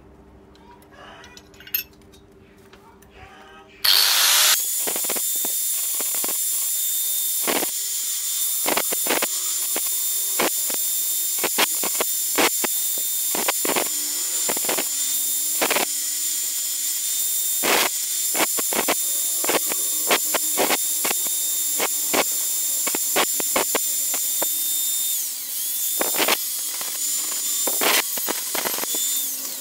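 Small high-speed power tool switched on about four seconds in, running with a steady high-pitched whine, with many irregular sharp clicks and scrapes as it works on the part. It slows briefly near the end, picks up again and then stops.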